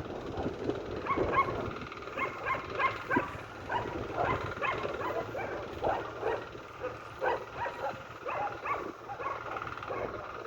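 A dog barking and yipping in many short, quick calls.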